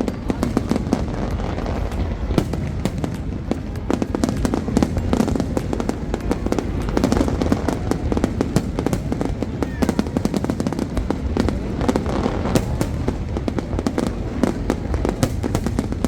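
Fireworks display going off continuously, with rapid bangs and crackling in quick succession over a steady low rumble.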